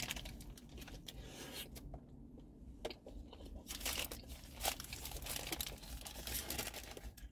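Someone eating a fast-food burger close to the microphone: crinkling of its wrapping, then bites and chewing, heard as a scatter of short crackles.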